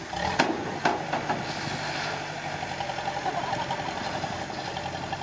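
Diesel engine of a small construction machine running steadily, with two sharp knocks close together near the start.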